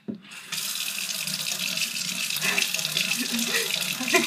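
Gooseneck kitchen faucet turned on, water running steadily into a stainless steel sink from about half a second in.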